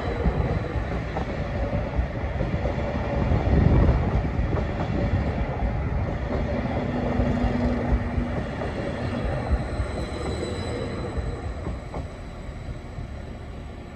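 Train passing over a level crossing: a steady, loud rumble of wheels on the rails that eases off near the end.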